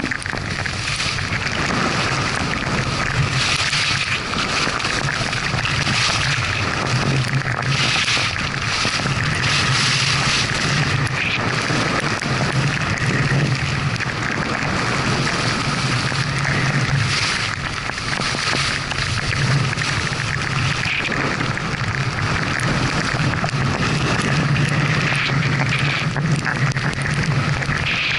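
Wind buffeting the microphone during a fast downhill ski run, a steady low rumble, with skis hissing and scraping over the snow in repeated swells.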